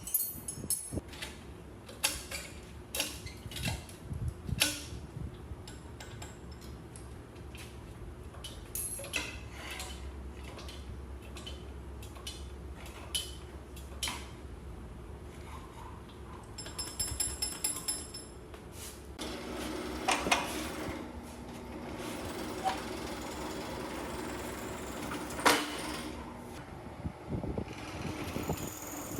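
Workshop sounds of metal being handled: irregular knocks and clanks, then a steady low hum, with a brief high whine partway through.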